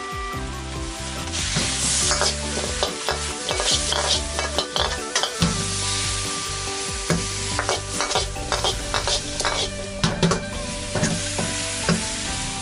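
Chicken wings sizzling in a caramelized fish-sauce glaze in a wok while a spatula stirs and tosses them, with repeated scrapes and clacks of the spatula against the pan. The sizzle grows loud about a second in.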